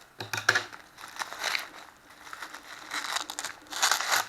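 Parcel packaging crinkling and rustling in irregular bursts as it is handled and opened by hand.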